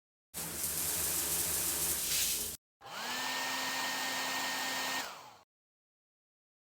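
Rushing air noise from a small electric blower motor, in two bursts cut off sharply. A third run about three seconds in has a motor whine that spins up, holds and winds down as it switches off.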